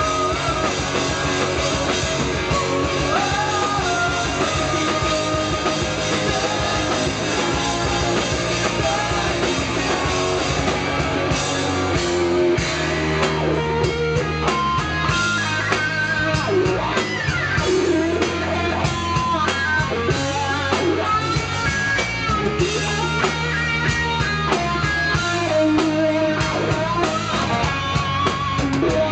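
Rock band playing live: electric guitars, bass and drums with a male lead singer.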